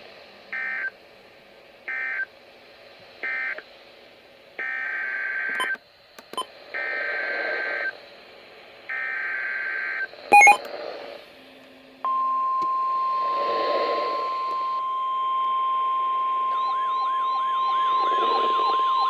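NOAA Weather Radio EAS data tones. Three short squawks of SAME end-of-message code close one severe thunderstorm warning, then three longer two-tone squawks carry the next warning's SAME header, with static crackles between them. A steady weather-radio alert tone near 1050 Hz starts a little past halfway, and a warbling tone joins it near the end.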